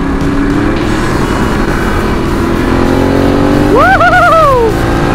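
Motorcycle engine pulling harder to overtake a car, its pitch climbing slowly, over wind noise on a helmet-mounted microphone. About four seconds in, a short wavering tone rises, wobbles and falls away.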